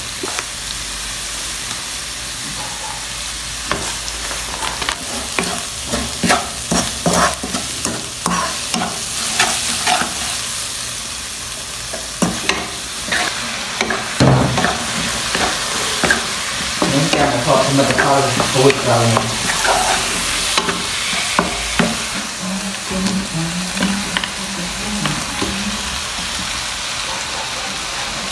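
Food sizzling and frying in a nonstick wok while a spatula stirs it, with frequent sharp scrapes and taps of the spatula against the pan, most of them in the first half.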